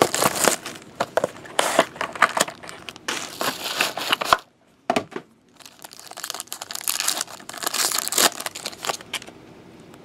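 Plastic shrink-wrap being torn and crumpled off a trading-card box, then a shiny plastic pack wrapper crinkling as it is opened. The rustling comes in irregular bursts, with a short lull about halfway.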